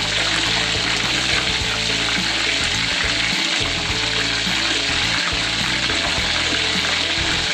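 Chicken pieces deep-frying in hot oil in a wok, giving a steady sizzle, with background music underneath.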